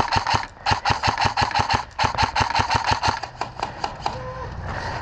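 Airsoft rifle firing on full auto: three long bursts of rapid shots, about a dozen a second, then a few scattered shots near the end.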